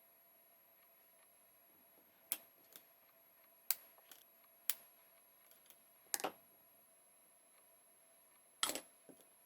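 Sharp, separate clicks and taps from small tools and parts handled on a work surface, about six spread unevenly, the loudest near the end, over a faint steady hum.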